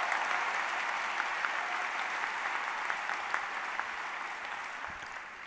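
Large audience applauding and cheering, the applause slowly dying away near the end.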